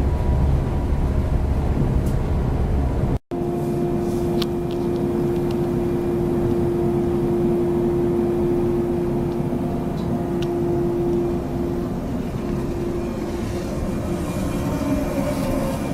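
Train running, heard from inside the carriage as a heavy low rumble. About three seconds in the sound cuts abruptly to a steadier mechanical hum with a single held mid-pitched tone that fades out about two-thirds of the way through.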